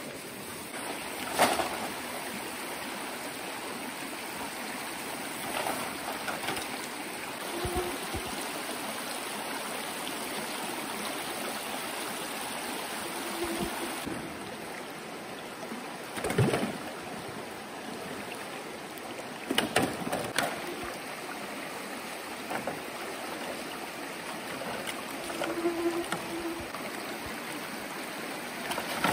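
Stream water running steadily, with a few short, sharp knocks now and then over it.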